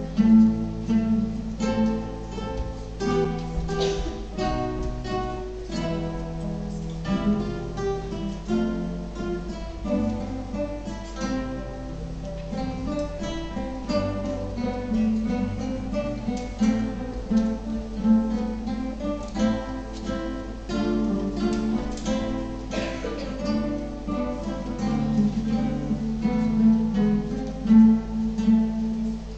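Ensemble of many acoustic guitars playing a piece together, plucked and strummed notes over a steady repeated bass. The music stops just at the end.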